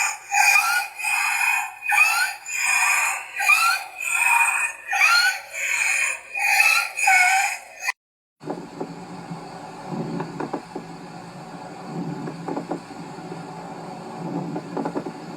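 Recorded abnormal lung sounds, as heard on auscultation. First comes a quick series of short, high-pitched squeaky bursts, about two a second. After a brief cut about eight seconds in, a low rumbling sound with scattered crackles follows.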